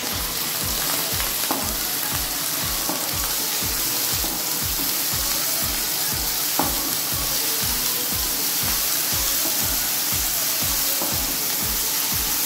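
Grated onion and ginger-garlic paste sizzling steadily in hot oil in a non-stick kadai as a wooden spatula stirs them, with a couple of sharp scrapes of the spatula on the pan. A low thud repeats about three times a second underneath.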